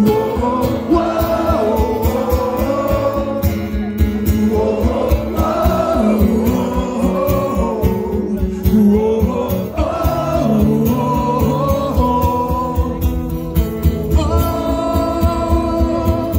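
Live rock band playing over a steady drum beat while a large crowd sings along to a wordless "whoa-oh" chorus in long held notes.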